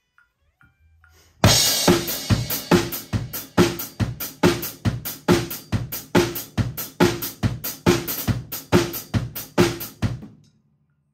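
DW acoustic drum kit played in a steady groove of kick, snare and cymbals, starting about a second and a half in with a crash and stopping about ten seconds in, the cymbals ringing off briefly.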